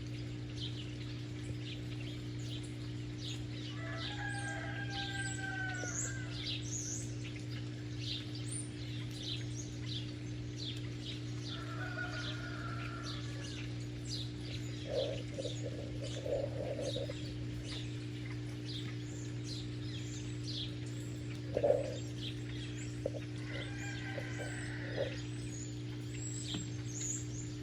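Chickens clucking and calling a few times, with small birds chirping throughout, over a steady low hum.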